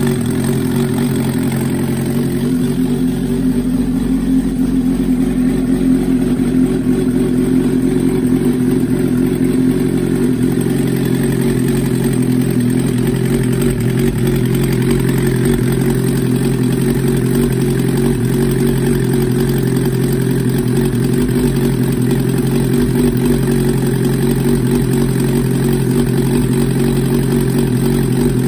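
A 1994 Suzuki GSX-R750's inline four-cylinder engine, just rebuilt with 1 mm oversize Wiseco pistons and Yoshimura Stage 2 cams, running steadily on its first start.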